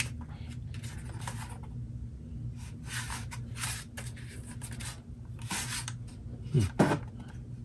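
Hands handling and turning over a Wi-Fi router, with soft scuffs and rubs of skin against its casing. A short vocal sound comes near the end.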